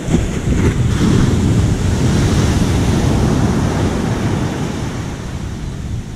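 Sea waves surging on a beach, with wind buffeting the microphone; the rush comes in suddenly at the start and slowly dies away.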